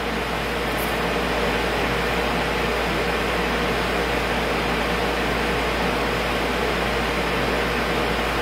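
Steady hiss with a faint steady hum, constant room background noise.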